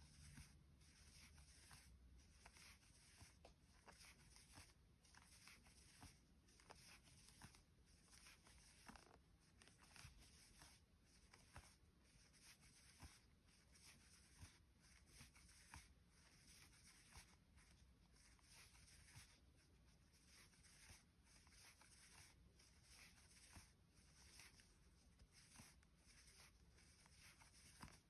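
Faint, scratchy rustle of a metal crochet hook drawing chenille yarn (James C Brett Flutterby) through single crochet stitches, repeating about once or twice a second.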